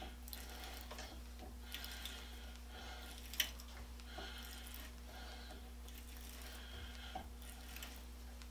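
Hand die in a die stock cutting thread onto a metal rod held in a vise: a faint scraping with each turn of the handle, about once a second, and one sharp metal click a little over three seconds in.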